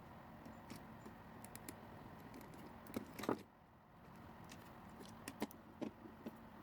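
Scattered light clicks and small clatter of hard objects being handled, with a brief cluster of louder clicks about three seconds in, over a faint steady hum.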